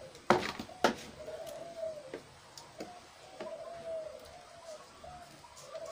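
Two sharp knocks in the first second as a plastic tub and a steel mesh sieve are handled, followed by a bird cooing, six or seven short, fainter calls.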